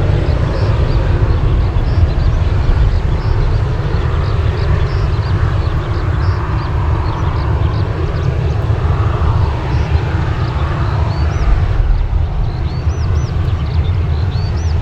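Boeing 737-800's CFM56 jet engines as a steady low roar while the airliner climbs away after takeoff, the upper part of the roar thinning over the last few seconds. Small birds chirp repeatedly over it.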